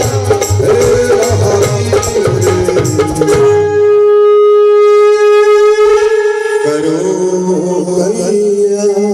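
Live Hindu devotional bhajan: a male singer over a tabla and dholak rhythm with keyboard accompaniment. About three and a half seconds in the drums stop and a single note is held steady for about three seconds, then the keyboard melody carries on.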